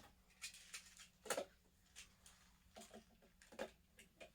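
Plastic magnetic building tiles clicking and clacking faintly as they are handled and snapped together, about eight light taps at irregular intervals, the sharpest about a second and a half in.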